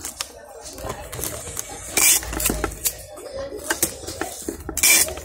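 Clear plastic gift bag crinkling and rustling as it is handled and opened, with many small crackles and two louder rustles, about two seconds in and near the end.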